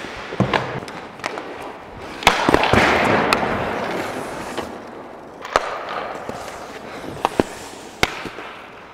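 Ice hockey play: skate blades scraping the ice, with a long, loud scrape about two seconds in, and a scattering of sharp clacks from sticks and pucks striking ice and goalie pads.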